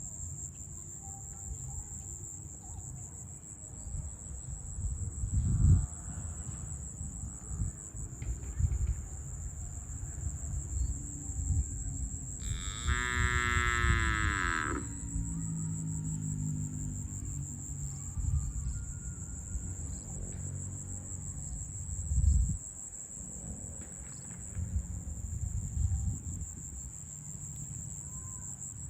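A cow moos once, a long call about halfway through that drops in pitch at its end. Steady high insect chirring runs underneath, with low rumbles and knocks coming and going.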